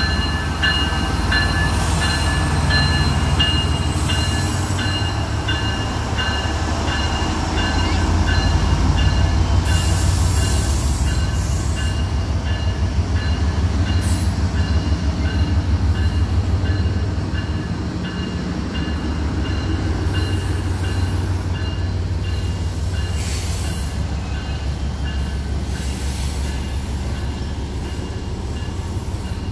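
Freight train rolling past close by: a CN diesel locomotive followed by autorack cars, with a loud steady rumble and rhythmic clatter of wheels on rail. High ringing squeal tones pulse evenly through the first dozen seconds and then fade.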